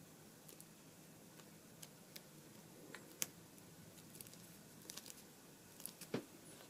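Faint scattered taps, clicks and rustles of fingers pressing and smoothing a glued card wall layer onto a card base on a cutting mat. The sharpest click comes about three seconds in, and a few more come near the end.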